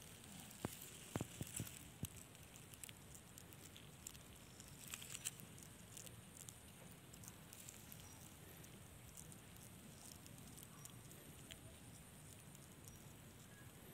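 Near silence: faint outdoor background with a few light ticks and crackles, clustered about a second in and again about five seconds in.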